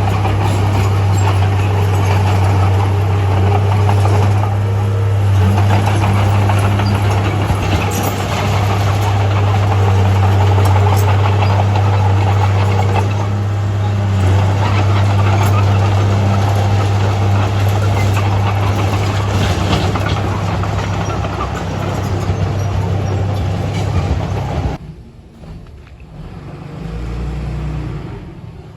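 Heavy diesel earthmoving engine running steadily under load with a constant low drone, cutting off abruptly near the end and leaving a much quieter low rumble.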